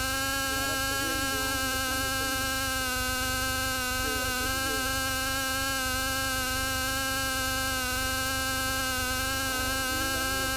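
A steady buzz at one fixed pitch with a row of even overtones, unchanging in level, heard through a light aircraft's intercom and radio audio feed.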